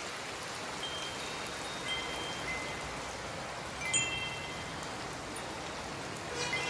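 Steady rain falling, with a few scattered high chime-like notes and a quick flurry of chimes near the end.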